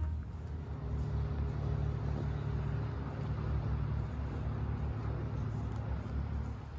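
A low, steady rumble of outdoor background noise.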